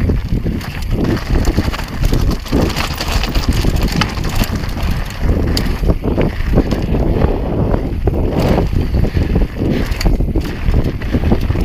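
Wind buffeting the camera's microphone as a mountain bike descends fast over loose rock and gravel, with tyres crunching and the bike clattering and rattling over the bumps in irregular knocks.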